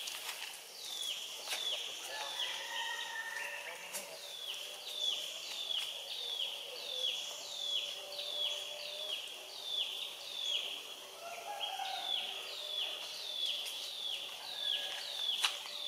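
Outdoor ambience with an animal's high, downward-sliding chirp repeated evenly, about three every two seconds, over fainter lower tones.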